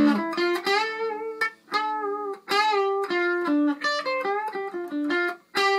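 Electric guitar playing a single-note lead phrase, with several notes bent up in pitch, and a longer held note near the end.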